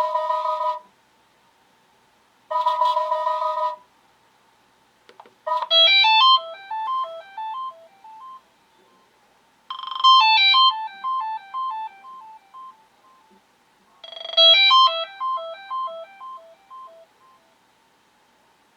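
Sonim XP6 phone's stock ringtones playing. First a held electronic chord tone sounds twice, about a second long each time. Then a different ringtone, a quick cascading electronic melody that trails off in repeated, fading notes, plays three times about four seconds apart.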